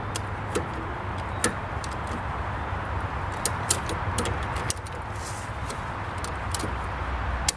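Ratchet strap being cranked as a makeshift winch, giving scattered sharp clicks at uneven intervals over a steady low rumble.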